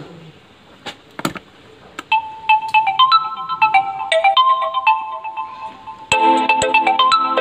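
Two sharp clicks, then a ringtone-style electronic tune of single bell-like notes begins about two seconds in; a fuller accompaniment with a beat joins near the end.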